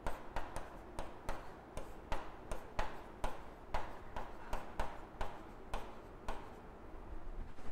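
Marker pen writing on a whiteboard: a run of short scratchy strokes and taps as the letters are drawn out, about two or three a second, stopping near the end.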